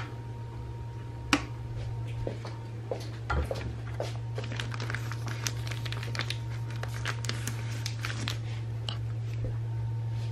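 Handling noises in a kitchen: a few sharp knocks, then a run of small clicks and crinkles from about four seconds in, over a steady low hum.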